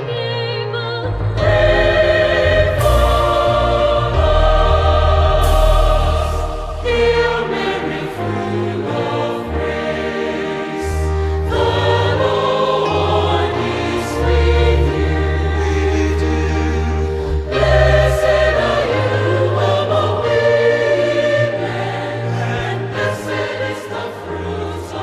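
A choir singing slow sacred music, held chords changing every few seconds over sustained low bass notes.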